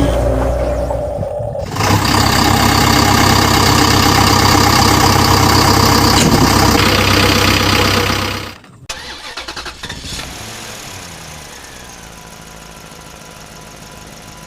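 An engine-like running sound, loud for about seven seconds, that stops abruptly and gives way to a quieter steady hum.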